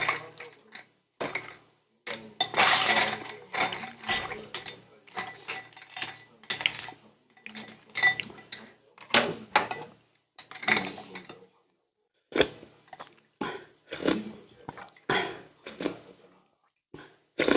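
Eating at a table: irregular crunches and clatter of food, dishes and utensils, a sharp noise every half second to a second or so.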